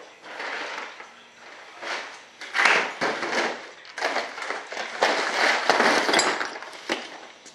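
A plastic parts-organizer box full of small nuts and screws being handled, with irregular bursts of rattling and clattering hardware.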